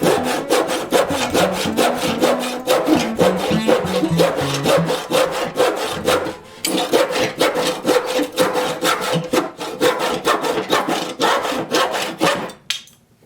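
Stanley SharpTooth hand saw cutting through wood in quick, even push-and-pull strokes, pausing briefly about six seconds in, then sawing on until it stops just before the end.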